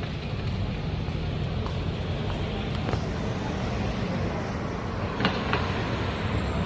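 City street traffic: a steady hum of passing vehicles, with a couple of short knocks about three and five seconds in.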